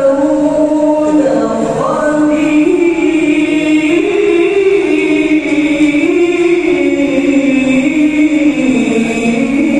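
Many voices singing a slow melody together in long held notes, the pitch stepping from one note to the next, sounding over the loudspeakers of a large arena.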